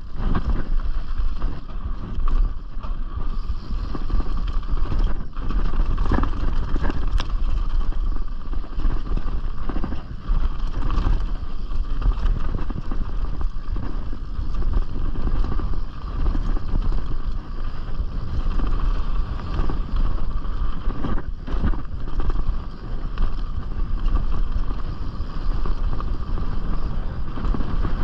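Riding noise of a Canyon Strive enduro mountain bike descending a dirt bike-park trail: tyres rolling over the ground and the bike rattling, with a few sharp knocks over bumps. Wind buffets the chest-mounted microphone throughout.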